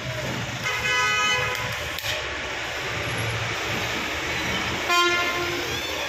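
Two short vehicle horn honks, about four seconds apart, the second lower in pitch, over a steady low hum.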